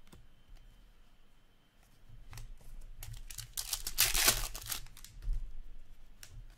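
Hockey trading cards handled by hand, sliding and clicking against one another, with a loud papery crinkling and tearing sound from about three to five seconds in.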